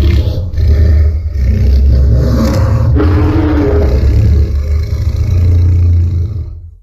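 Deep, rumbling monster roar sound effect from the Godzilla films, drawn out over several seconds and fading away near the end.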